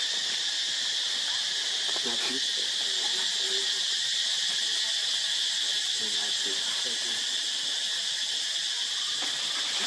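Steady chorus of insects, a continuous high, even drone.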